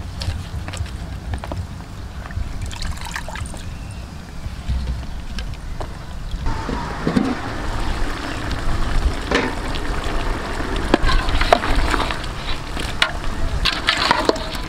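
A low, steady rumble of wind on the microphone. From about six seconds in, a large pot of duck curry boils and bubbles, with irregular pops and clicks.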